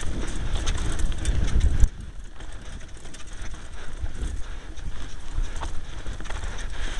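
2012 Kona Blast mountain bike riding down a rough dirt trail: a low rumble with rattling clicks and knocks from the bike over the ground. The rumble drops sharply about two seconds in, and the clicks carry on more quietly.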